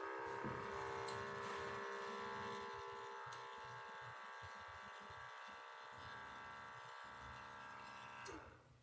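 Small geared motor of a motorised gas-valve actuator buzzing steadily as it turns the valve, running for about eight seconds and stopping shortly before the end.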